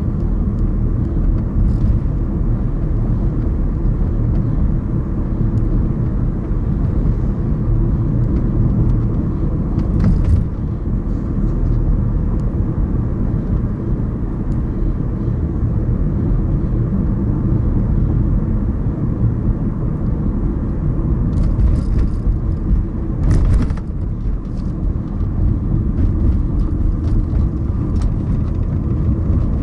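A car driving on city streets: a steady low rumble of engine and road noise, with a few brief sharp noises such as bumps, about a third of the way in and twice near the end.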